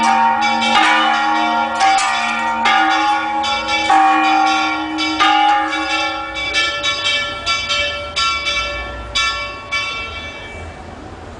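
Church bells pealing in a rapid repique: several bells struck in quick succession, calling the faithful to Mass. About halfway through, the deep bells fall silent, and the remaining strikes thin out and stop near the end.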